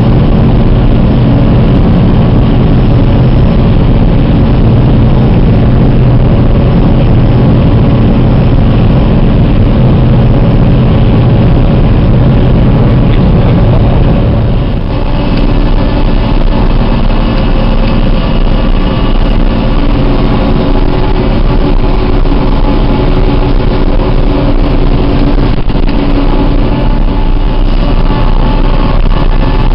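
John Deere self-propelled forage harvester running under load while chopping maize: a loud, steady drone of engine and chopping machinery. About halfway through it dips briefly and its tone changes.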